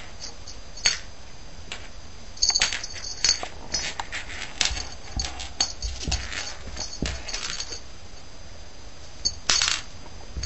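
Small bell on a cat's feather toy jingling in short irregular bursts as the cat bats and bites at it, with soft knocks of the toy on a wooden floor; a cluster of jingles comes near the end.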